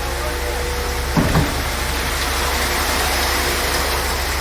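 Concrete pump truck's diesel engine running steadily with a constant low drone, and a short thump about a second in.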